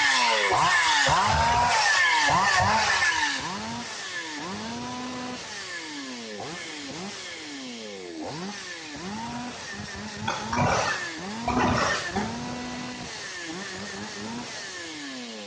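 Ogawa Pro two-stroke chainsaw engine being test-run, revved up and let fall back again and again. It is loud for the first few seconds and quieter after, with two short, sharper revs past the middle.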